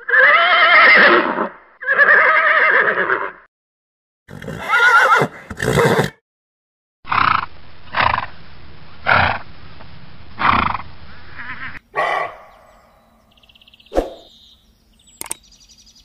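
Zebras calling: a string of loud, whinny-like braying calls, first several long ones, then shorter calls roughly once a second over a steady hiss.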